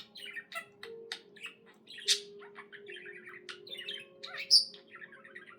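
Pet budgerigar warbling: a busy run of short chirps and clicks, with a louder chirp about two seconds in and a sharp, high squawk about four and a half seconds in.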